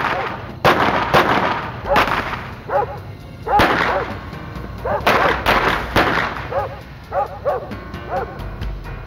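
A series of gunshots at irregular intervals, each with an echoing tail, mixed with a dog barking repeatedly, the barks coming more often in the second half.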